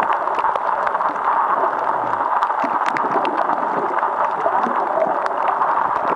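Underwater sound picked up by a camera held below the surface: a steady muffled wash of moving water, with many sharp clicks and crackles scattered irregularly through it.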